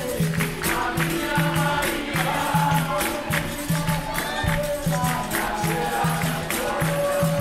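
Live capoeira roda music: berimbaus, an atabaque drum and a pandeiro keep a steady beat, about two low strokes a second, under a group singing together.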